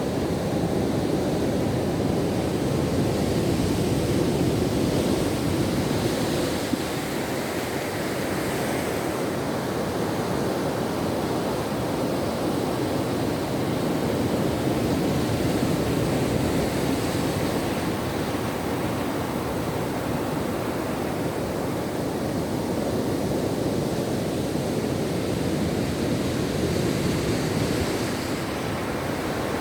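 Ocean surf washing on a shore: a steady rush of breaking waves that swells and eases roughly every ten seconds.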